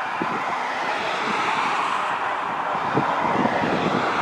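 Jet airliner on final approach, its engines making a steady rushing noise that grows a little louder as it comes closer, with wind buffeting the microphone.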